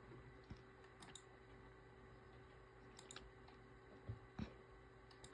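Faint, scattered clicks of a computer mouse and keyboard, a few single clicks and close pairs, over a low steady hum.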